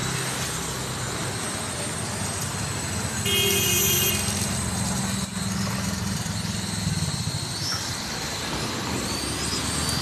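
Small toy quadcopter's motors and propellers running in flight, a steady buzz with a high whine, over street traffic. A vehicle horn sounds once for about a second, about three seconds in.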